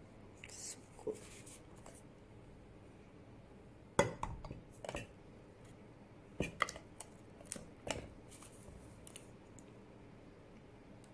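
Tableware clinking and knocking on a breakfast tray. There are several short sharp knocks; the loudest comes about four seconds in and a few smaller clinks follow over the next four seconds.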